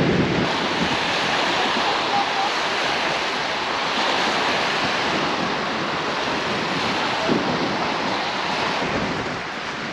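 Strong gusting wind, estimated at 40 to 50, rushing across a lake whipped into whitecaps, with waves washing and wind buffeting the microphone as a steady loud rush.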